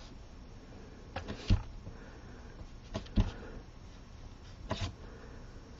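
Quiet handling sounds: a few soft taps and rubs as a ball-end stylus rolls the petals of a punched paper daisy on a mat, in three short clusters about a second and a half apart.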